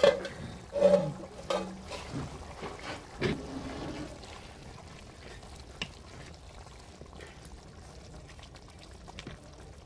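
Wooden spatula stirring a thin pea-and-mushroom curry in a metal kadai, knocking and scraping against the pan several times in the first few seconds. After that comes a softer, steady sound of the wet curry simmering.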